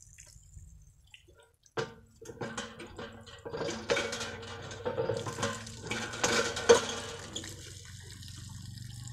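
Hand pump worked by a buffalo's horns: after a sharp knock about two seconds in, the handle knocks and clanks repeatedly while water spurts from the spout and splashes, then the sound tails off near the end.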